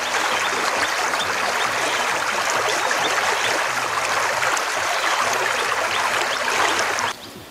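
Shallow river water running over stones, a steady babbling rush that cuts off abruptly near the end.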